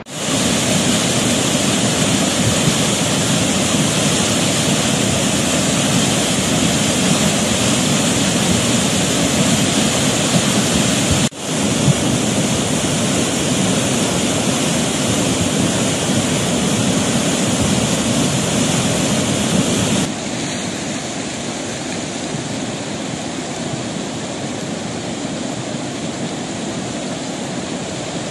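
Floodwater rushing as a loud, steady torrent. The level changes abruptly twice, about eleven and about twenty seconds in.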